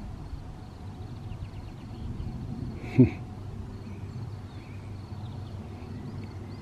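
Wind noise on the microphone, with faint bird chirps above it. About three seconds in comes one short, loud call that falls in pitch.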